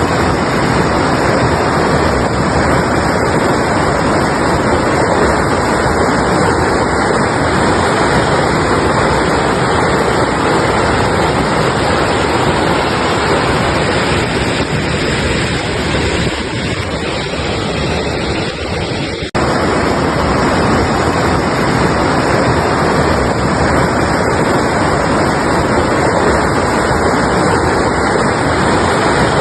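Mountain river rushing, a loud steady roar of water with an abrupt break about two-thirds of the way through, where the sound cuts and starts again.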